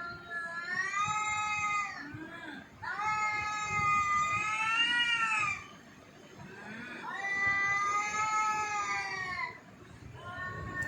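A cat yowling in long, drawn-out meows: three calls of two to three seconds each, each one swelling and bending in pitch, with a fourth starting near the end.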